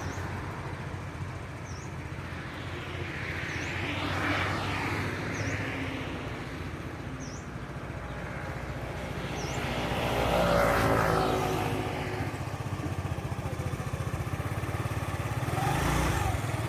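Road traffic: a steady low engine hum, with vehicles passing close by three times, the loudest about ten seconds in.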